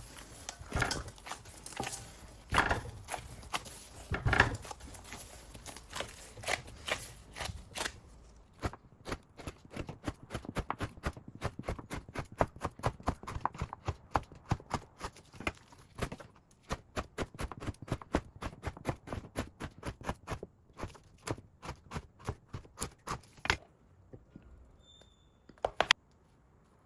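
Rapid run of sharp kitchen taps and knocks, utensil or knife on a hard surface. A few louder, irregular knocks come first, then a quick even series at about three to four a second, which stops a few seconds before the end.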